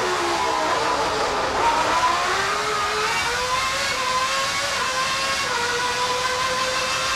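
Honda V10 engine of a 1990 McLaren Formula One car heard on board: its pitch drops in steps through downshifts in the first second, then climbs as the car accelerates out of the corner, with a quick upshift about five and a half seconds in.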